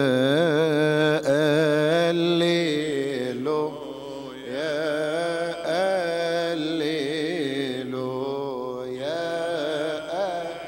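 A male chanter sings a long, ornamented Arabic Coptic church chant into a microphone, the melody winding up and down on held syllables in a reverberant church. There is a short pause about four seconds in.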